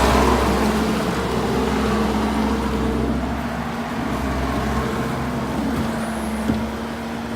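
C190 tracked skid steer running steadily at high engine speed, with a constant whine and a slow fade in level.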